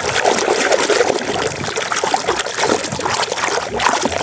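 Water splashing and trickling, continuous and uneven, as a muddy toy vehicle is washed in clean water.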